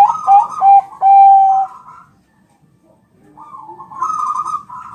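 Zebra dove (Bangkok perkutut) cooing: a quick run of short clipped notes that ends in one long held coo, then a quieter rolling coo near the end.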